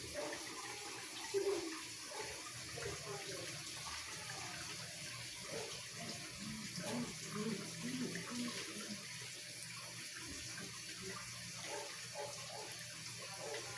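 Water running into the tub of a Consul 12 kg washing machine as it fills for the rinse, nearly full; a steady pouring sound with a faint low hum.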